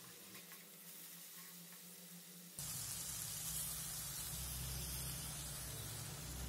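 Faint sizzle of potatoes and spinach frying in a nonstick kadhai while they are stirred with a wooden spatula; about two and a half seconds in, water is poured into the hot pan and a louder, steady hiss of pouring and sizzling sets in suddenly.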